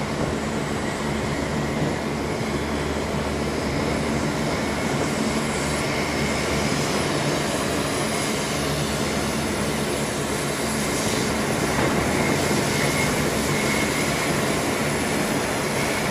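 Lockheed C-130J Super Hercules taxiing, its four Rolls-Royce AE 2100 turboprop engines running with a steady propeller drone and a high, steady whine. It grows a little louder in the second half as the aircraft passes close by.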